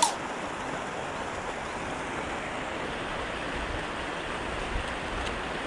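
Steady rushing of splashing water from the trout pond's fountain aerators, an even hiss with no rhythm. A single sharp click sounds right at the start.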